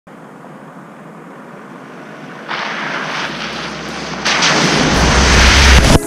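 A noisy, rumbling swell that builds in steps, jumping louder about halfway through and again near the end, with a deep rumble growing beneath it until it breaks off sharply: an intro sound effect that rises into the video's opening music.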